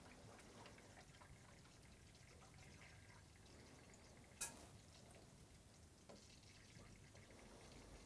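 Faint trickling and gurgling of coolant in a PC water-cooling loop as the D5 pump circulates it while the loop is being bled of air, with one sharp click about halfway through.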